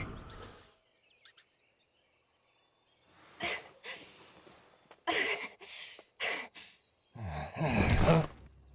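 Cartoon sound effects: a loud sound dies away, a near-silent pause follows, then a string of short breathy vocal sounds such as gasps and sighs, the loudest near the end.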